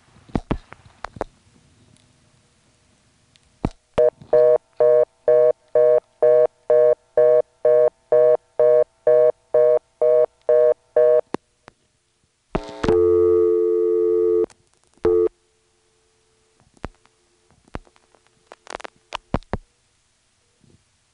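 Analog telephone line tones from a 1977 NX1 exchange: a few hook clicks, then a busy tone pulsing about twice a second for some seven seconds, followed by a second and a half of steady dial tone with a low hum and more scattered clicks as the line is hung up.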